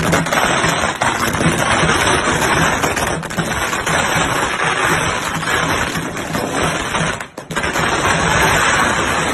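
Strings of firecrackers going off in a dense, continuous rattle of rapid bangs, with a brief break about seven seconds in.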